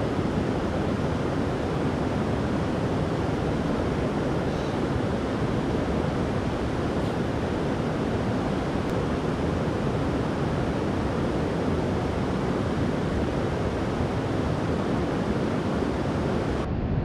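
Creek water rushing steadily, an even, unbroken noise.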